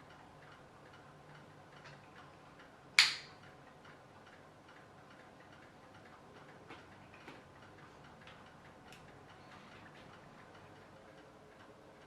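Steady, faint ticking of about two ticks a second, like a clock, with one loud sharp click about three seconds in.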